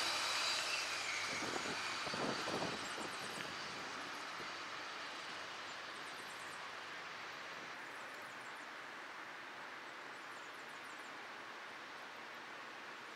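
Passenger train running away on the rails, its rumble fading steadily, with a few wheel clacks about two seconds in.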